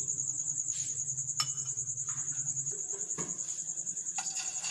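A steady high, rapidly pulsing insect-like trill runs throughout. About four seconds in, hot oil starts to sizzle as an egg-coated shami kebab goes into the frying pan.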